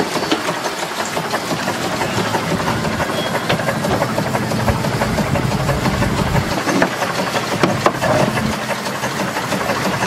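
Steam launch's compound steam engine and vacuum pump running steadily, a continuous mechanical clatter with steam hissing over it.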